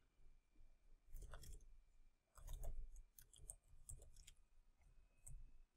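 Faint keystrokes on a computer keyboard, typed in short runs with brief pauses between them.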